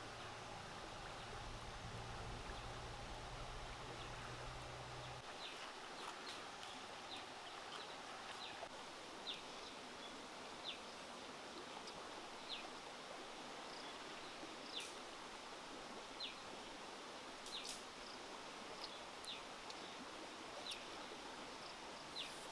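Outdoor ambience: a steady hiss, with a low hum that stops about five seconds in, then a short high chirp repeated roughly once a second from a small animal.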